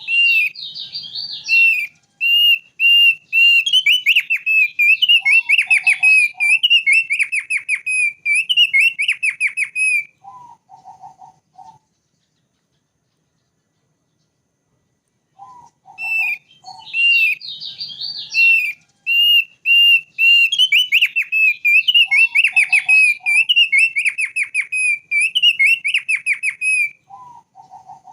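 Thick-billed white-eye singing: long bouts of rapid, warbling whistled phrases with fast trills, each bout opening with a few short low notes. The song stops for a few seconds in the middle, then the same song starts again.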